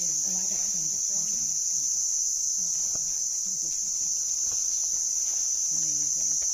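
Steady high-pitched insect chorus droning without a break, with faint voices murmuring underneath.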